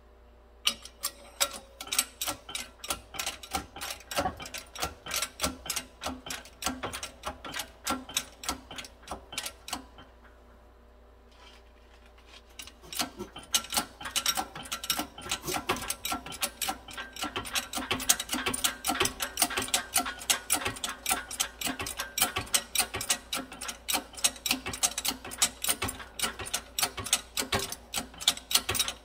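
Hydraulic shop press working while pressing a differential pinion bearing off its shaft, its pump giving a steady rapid clicking of about four clicks a second. The clicking stops for about two seconds near the middle, then resumes somewhat faster.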